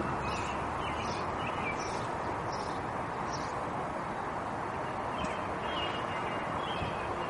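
Steady outdoor background noise with small birds chirping now and then.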